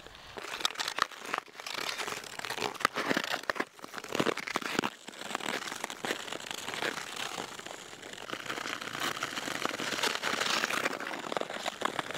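Ice skate blades scraping and cutting across frozen lake ice: a crackly, scratchy sound with sharp clicks and scrapes through the first five seconds or so, then a denser, steadier hiss.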